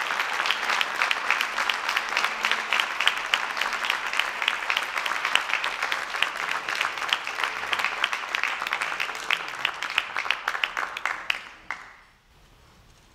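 Audience applauding with many hands clapping, the applause thinning out and dying away near the end.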